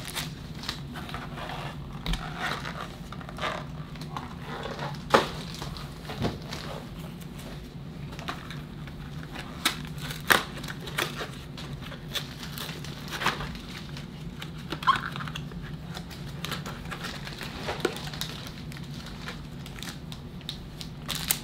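Plastic wrapping on a sealed box of trading cards crinkling and tearing as it is unwrapped and opened, with scattered sharp snaps, the loudest about five and ten seconds in.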